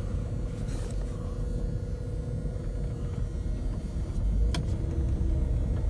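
Box truck engine running, a steady low rumble heard from inside the cab with a thin steady hum over it. The rumble grows a little louder about four seconds in, and there is a single click shortly after.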